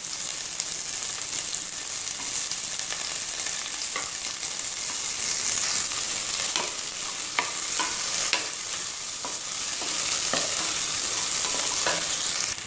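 Sliced onions sizzling in hot oil and ghee in a pressure cooker, stirred with a wooden spatula that clicks and scrapes against the metal pan now and then.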